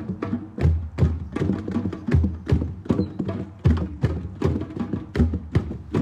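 Group hand drumming in a drum circle: a fast, continuous rhythm of many overlapping strokes, deep bass tones among sharper slaps.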